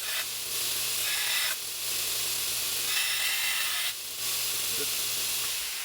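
Belt grinder grinding the steel of a knife blank: a steady hiss over the motor's hum, in three long passes with short breaks between them, as cut marks are ground away.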